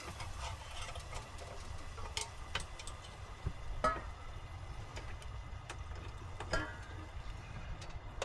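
Food heating on a portable propane stove: scattered small pops and ticks, a dozen or so at uneven intervals, over a steady low hum.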